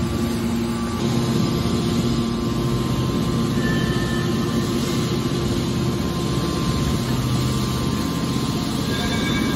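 Hydraulic scrap metal baler running: the steady hum of its hydraulic power unit as a hydraulic cylinder swings the heavy lid closed over the scrap-filled press box.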